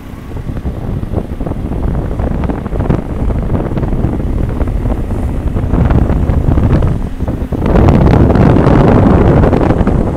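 Wind buffeting the microphone of a rider on a moving motorbike. It gets louder about eight seconds in.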